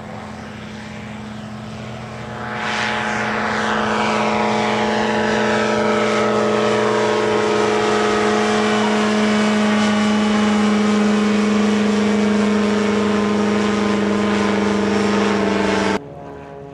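Engine and pusher propeller of a Kasperwing ultralight running at steady power. It grows louder about two and a half seconds in as the aircraft passes close, with a sweeping hiss over the steady buzz. It cuts off suddenly near the end.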